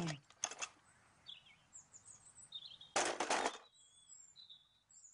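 An old child's bicycle being handled: faint, short, high squeaks and a brief rattling clatter about three seconds in. The squeaks are the sign of a dry bike that needs oiling.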